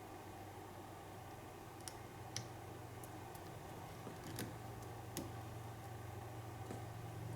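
Single-pin picking of an American Lock padlock: a pick and tension wrench working the pins in the keyway, giving faint, sharp, irregular clicks about once a second, over a steady low hum.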